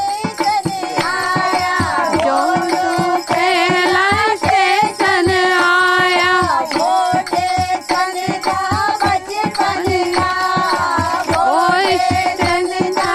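A group of women singing a Hindi devotional song (bhajan) together, with steady rhythmic hand clapping.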